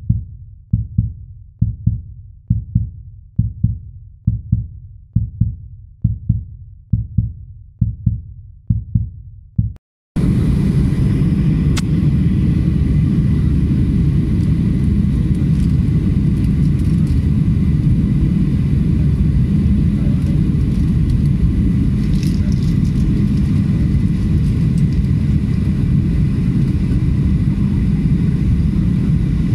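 A slow beat of deep thumps, a bit more than one a second, for about ten seconds, then a cut to the steady, even noise inside a jet airliner's cabin in flight beside a wing-mounted turbofan engine, with engine and airflow noise deep and constant.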